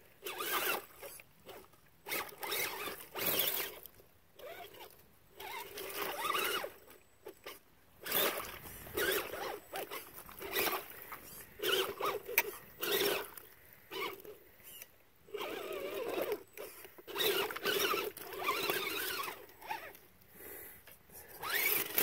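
Redcat Everest Gen7 Pro RC crawler's electric motor and gears whining in repeated short throttle bursts, about one a second, as its tyres churn in the mud. It is struggling to climb out of a mud hole, held up by what the driver takes for a root or branch underneath.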